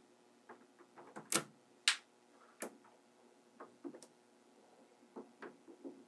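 Small magnetic balls clicking and snapping together as strips of them are laid onto a stacked block of magnet balls. The clicks are irregular and sharp, the two loudest about one and a half and two seconds in.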